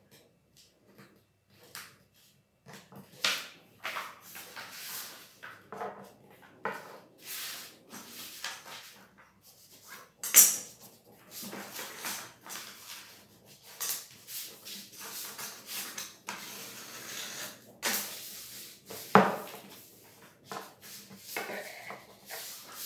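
Stiff paper rustling and crinkling as a sheet is folded and creased by hand on a tabletop, in irregular bursts, with two sharper crackles, one about halfway through and a louder one later on.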